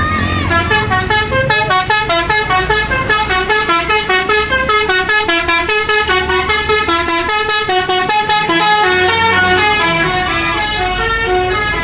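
Tour bus's telolet basuri horn playing a quick melody: a fast run of short notes stepping up and down in pitch, several notes a second.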